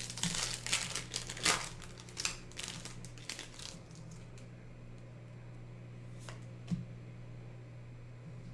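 Foil wrapper of a Yu-Gi-Oh booster pack crinkling in a run of sharp crackles as the pack is opened by hand, settling down after about three and a half seconds. There is a single short tap near the end.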